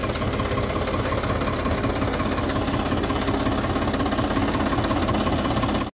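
Farmtrac 60 tractor's diesel engine running steadily under load as it pulls a direct-seeding rice drill.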